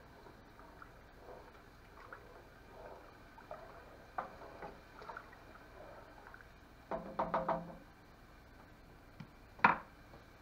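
A wooden spoon stirring soap mixture in a metal saucepan with faint scraping, then a quick run of ringing taps against the pot about seven seconds in. A sharp knock near the end as the spoon is laid down on the counter.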